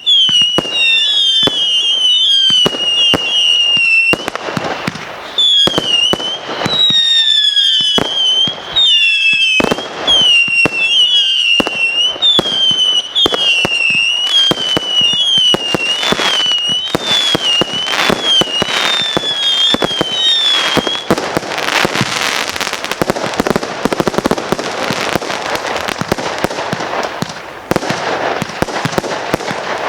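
Consumer firework cake firing a rapid string of whistling shots: each shot is a high whistle falling slightly in pitch, with sharp bangs between them. About two-thirds of the way through, the whistles stop and give way to a dense, continuous crackling barrage.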